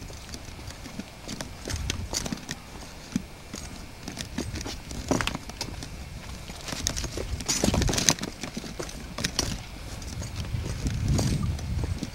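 Shoes scuffing and knocking on rock while scrambling over boulders, in irregular steps with louder scrapes about halfway through and near the end.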